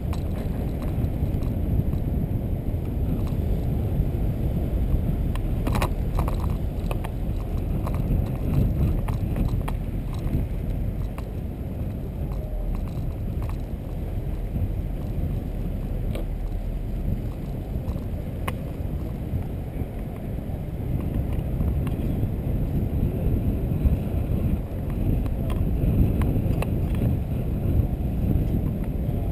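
Car driving slowly: a steady low rumble of road, tyre and engine noise, with a few faint clicks and rattles.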